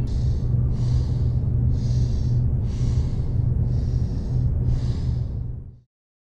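A woman's quick, frightened breathing, about one breath a second, over a deep steady low rumble. Both cut off abruptly near the end.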